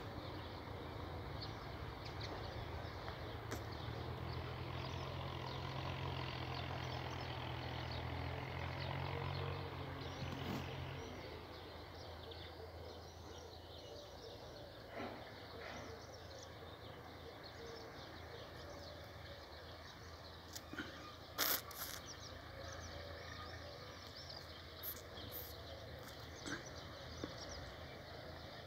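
Outdoor rural ambience with the steady low hum of a distant engine, which fades away about eleven seconds in; after that only a faint background remains, broken by a few sharp clicks, the loudest a little past the middle.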